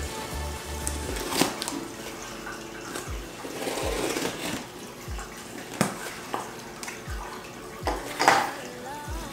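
A cardboard shipping box being opened by hand: packing tape slit with a small blade and the flaps pulled apart, with scraping, rustling and sharp knocks of the cardboard. The loudest knock comes about eight seconds in.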